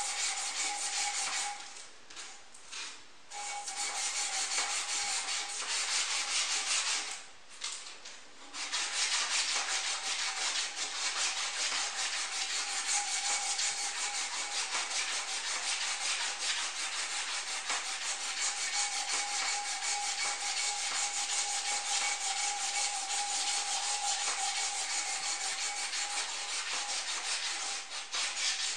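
Metal support rod being polished by hand, a strip drawn quickly back and forth around it: a steady rubbing scrub, with two short pauses in the first nine seconds and then continuous rubbing.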